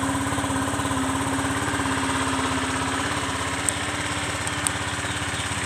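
Modenas Elegan scooter's engine running steadily while riding, with an even drone and a steady hiss of air and road noise over it.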